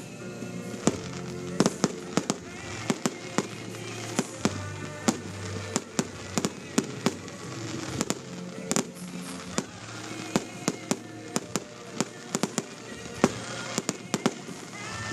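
Fireworks display: a rapid, irregular string of sharp bangs and reports, several a second, with the loudest one a little before the end, over music playing in the background.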